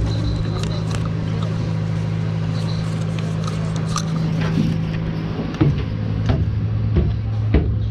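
Steady low hum of the ferry's machinery. About halfway through, footsteps knock on the metal stairs, four heavier steps roughly two-thirds of a second apart near the end.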